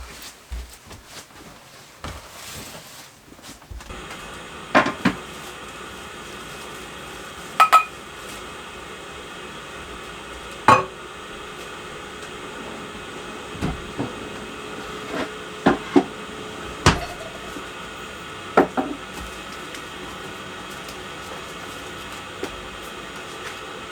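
About a dozen sharp knocks and clinks, scattered and irregular, over a steady hum that starts about four seconds in.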